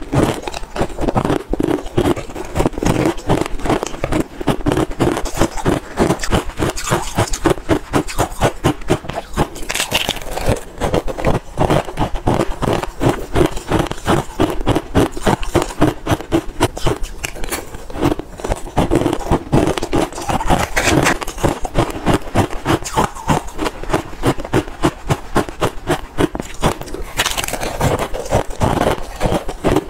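Close-miked crunching of crushed ice mixed with red dragon fruit as it is bitten and chewed, a fast, steady run of crunches, with a metal spoon now and then scraping the plastic pot.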